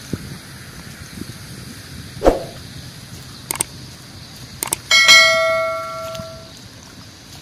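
Subscribe-button sound effect: a short thump, a few sharp mouse-style clicks, then a notification bell dings once and rings out, fading over about a second and a half.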